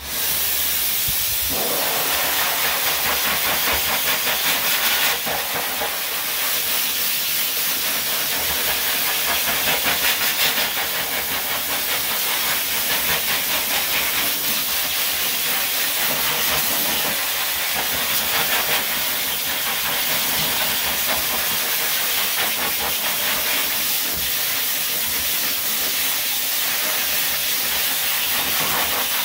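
Pet grooming blow dryer switching on at the very start and then running steadily: a loud, even, high hiss of rushing air.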